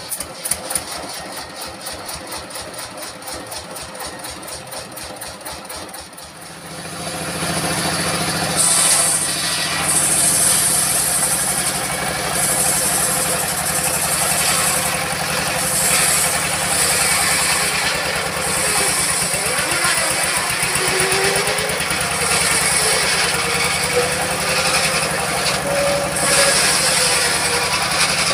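An old diesel engine chugging at a slow, even idle just after starting, then speeding up about six seconds in to drive a circular saw. The saw blade then rips lengthwise through a teak log with a hiss, its whine rising and falling as it takes the load.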